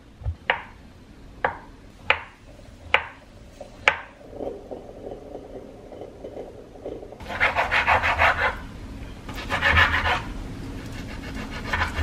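Kitchen knife cutting on a wooden chopping board: five sharp taps less than a second apart, then, from about seven seconds in, three bursts of fast rasping strokes as the blade saws through food against the wood.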